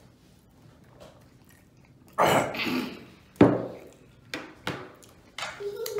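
A man coughing: two hard coughs about two and three seconds in, then a few smaller coughs and throat sounds, brought on by the heat of extremely spicy chicken wings.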